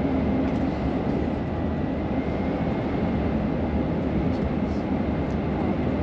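Steady road and engine noise inside a moving car's cabin: an even low rumble with a faint high whine.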